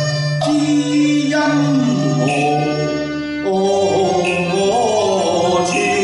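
Cantonese opera (yuequ) singing: a voice holding long, sliding notes over live instrumental accompaniment, with a new phrase beginning about halfway through.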